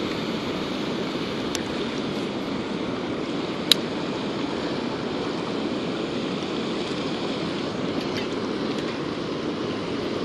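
Steady rush of water pouring over a concrete spillway and churning in the pool below it. One sharp click about a third of the way in.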